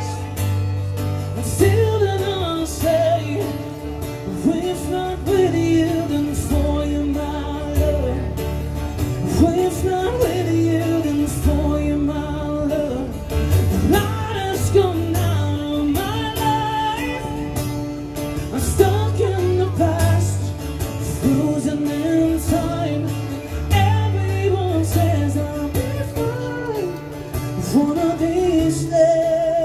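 A man singing a love song live into a microphone, accompanying himself on guitar.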